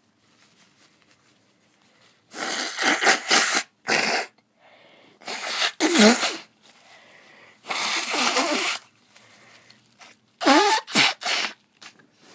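A person blowing their nose hard into a handkerchief, five forceful blows about a second each, some with a wavering honking tone.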